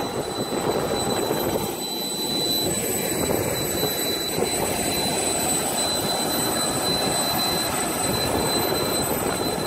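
A jet turbine running steadily on the ramp: a high, unchanging whine over a broad rushing noise.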